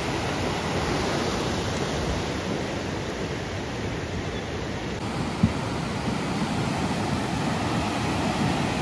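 Fast, swollen river rapids: a steady rush of whitewater over rocks, with one brief knock a little past halfway.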